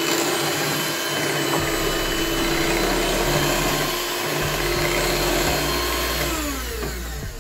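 Electric hand mixer running, its beaters whirring steadily through cake batter. Near the end it is switched off and the motor winds down.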